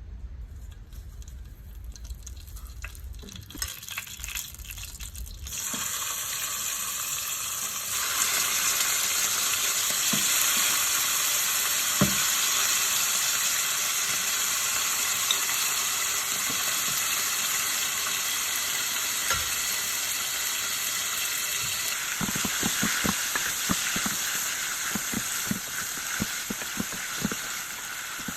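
Food frying in hot oil in a pan: a sizzle starts about five seconds in and grows louder a couple of seconds later, then holds steady. In the last few seconds a utensil knocks and clicks against the pan as the food is stirred.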